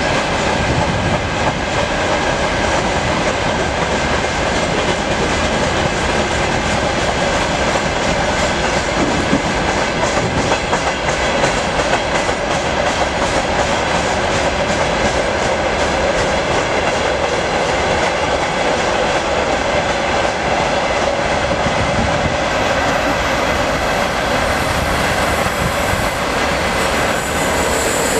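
Freight train of open gondola wagons rolling past in a steady rumble, with the wheels clattering over rail joints. A higher hiss joins about six seconds before the end.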